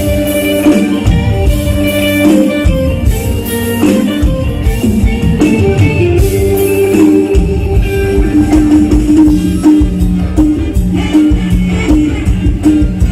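Live mor lam band music, an instrumental passage with a steady drum beat under held melodic tones.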